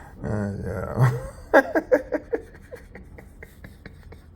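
A man laughing: a burst of falling ha-ha-ha about a second and a half in, trailing off into fainter, quick, breathy chuckles.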